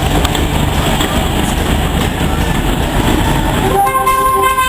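Train running with a steady low rumble, then about four seconds in a short, several-toned whistle sounds and cuts off at the end.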